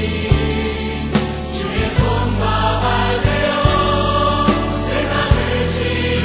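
Choir singing a Christian worship song over instrumental accompaniment with a steady beat.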